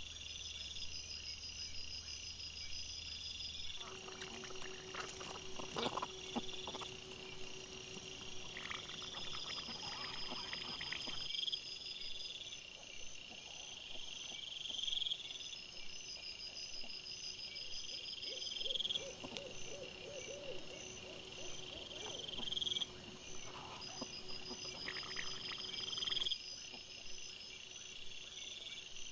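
Night insects chirping in a steady repeating pattern. Patches of rustling and snuffling come from wild boar piglets rooting on the ground, about 4 seconds in and again near the end.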